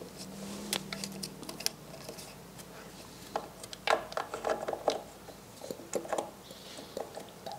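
Scattered light clicks, taps and short metal scrapes as a new mechanical fuel pump is slid over its mounting studs and seated against the engine's timing cover on its spacer gaskets.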